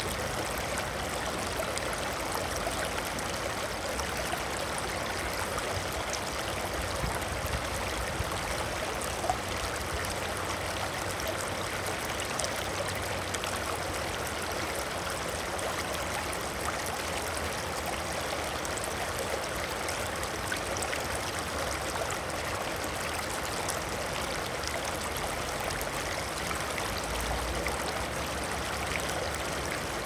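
Water flowing steadily, an even rush of running water like a stream, holding at the same level throughout.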